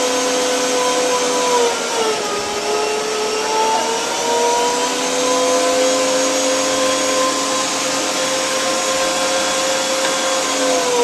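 Arçelik K 1766 1400 W electric meat grinder running with a steady motor whine as it minces raw meat. About two seconds in, the pitch drops as meat is pushed into the auger, climbs back over the next few seconds, then sags again near the end.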